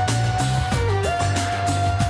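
Music with a steady beat and bass, under a long held lead note that dips in pitch and slides back up about a second in.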